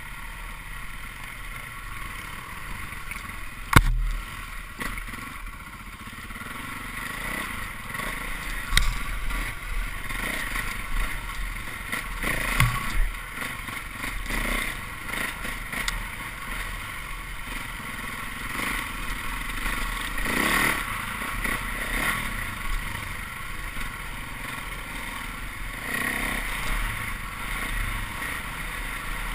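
Dirt bike engine running on a trail ride, the throttle rising and falling over the terrain, with rumble on the microphone and a sharp knock about four seconds in.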